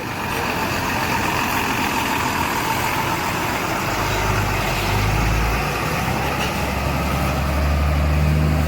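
Road traffic noise with a heavy engine running nearby; its low hum comes in about halfway through and grows stronger near the end.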